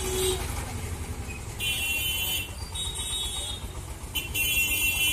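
Road traffic at a railway level crossing: motorcycle and scooter engines running. Over it come three shrill, buzzing bursts; the last, beginning near the end, is the longest and loudest.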